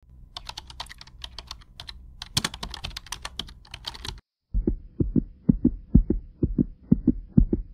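Intro sound effects: computer keyboard typing, rapid key clicks that stop suddenly about four seconds in, then after a brief gap a fast heartbeat of paired lub-dub thumps, with a faint steady tone behind them.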